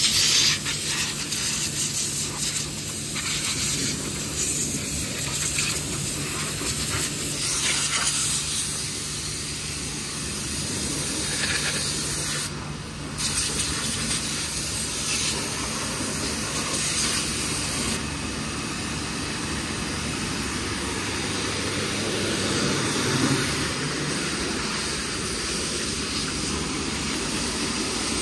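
High-pressure jet from a hose hissing steadily as it is played over a car's open engine bay and bodywork, with one short break about 13 seconds in.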